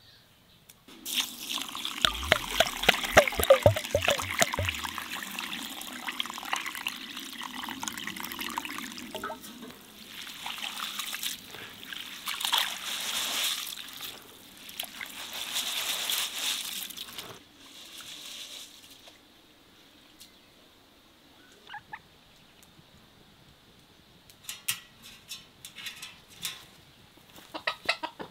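Water pouring and sloshing over rice being rinsed by hand in a metal pot, then several short light clicks near the end.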